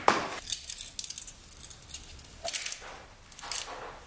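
Light metallic clinks and rattles of a feeler gauge set being handled and slipped in to check intake valve clearance, in several short, separate bursts.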